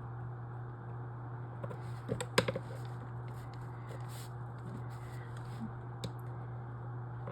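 Steady low hum with faint hiss, broken by a quick cluster of sharp clicks a little over two seconds in and a single click about six seconds in.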